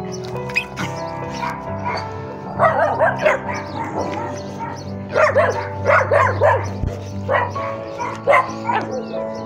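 A pack of mixed-breed rescue dogs giving short, high, excited calls in several clusters, around three seconds in, again from about five to six and a half seconds, and near the end, over steady background music.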